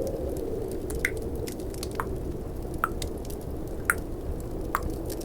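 Tongue clicks, five in all about a second apart, each a short sharp pop, over a steady low snowstorm and fireplace ambience.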